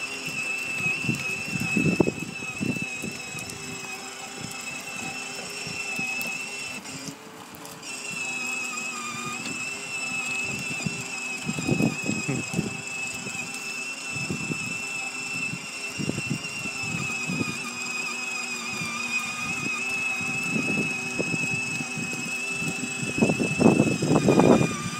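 Electric drive motors of a Mercedes GL-Class ride-on toy car whining steadily as it drives along, the whine dipping briefly about seven seconds in. Uneven rumbles underneath, loudest near the end.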